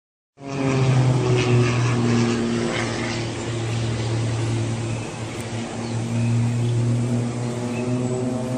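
Propeller aircraft engine droning steadily, starting abruptly about half a second in, with a slight dip in level around the middle.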